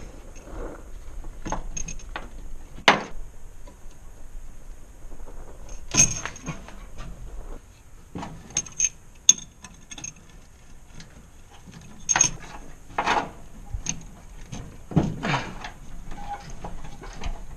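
Irregular metallic clinks, jingles and knocks in small clusters with short pauses between.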